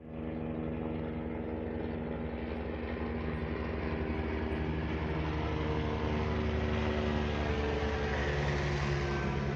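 Helicopter flying close by: a steady turbine and rotor sound with a fast low pulsing of the blades, growing slowly louder as it approaches.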